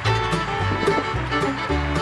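Background music: an upbeat bluegrass-style tune with fiddle and a steady beat.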